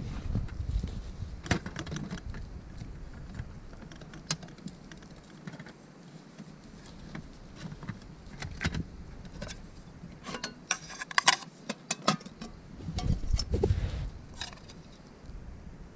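Metal camp pots and a kettle clinking and clattering as they are handled and set down, with scattered knocks and a quick run of metallic clinks about eleven seconds in.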